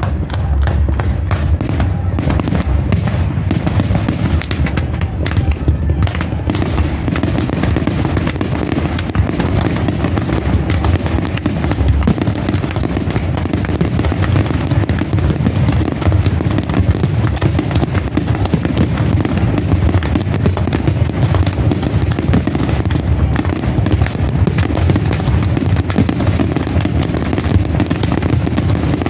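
Fireworks display: aerial shells bursting and crackling in a dense, unbroken barrage, bang following bang many times a second.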